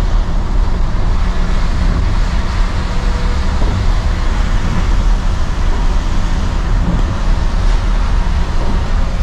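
Steady low engine rumble and tyre noise of a Thaco coach bus cruising on a wet road, heard from inside the driver's cab.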